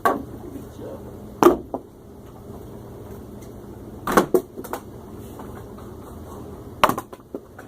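A handful of short, sharp knocks and clacks at irregular intervals, about five in all, over a low steady background.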